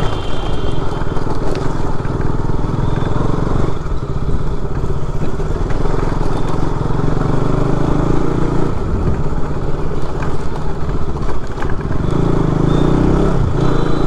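KTM RC 200's single-cylinder engine running as the bike is ridden slowly along a street, its level swelling and dipping a little. A short high-pitched tone sounds just after the start, again about three seconds in, and near the end.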